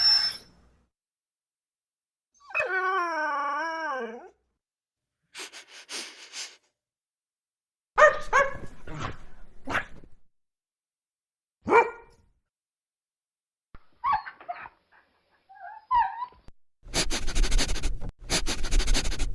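A series of separate dog sounds with silent gaps between them: a long wavering whine that drops in pitch at its end, then a few barks, a single bark, some short high yips, and a rougher, noisier stretch near the end.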